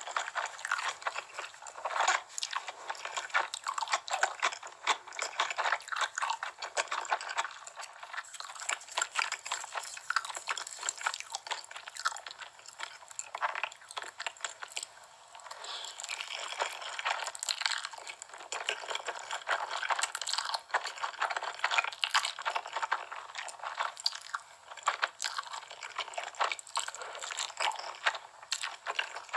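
Close-miked eating ASMR of spicy noodles and fried chicken: crunchy bites and chewing, a dense run of irregular crackles and clicks.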